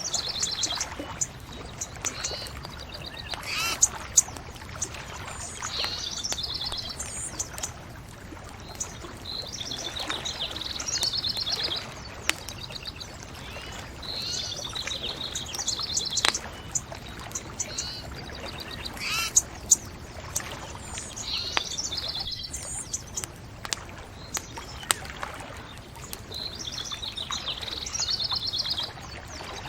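Birds singing, one repeating a short trilled phrase every few seconds, over a bonfire crackling with scattered sharp pops.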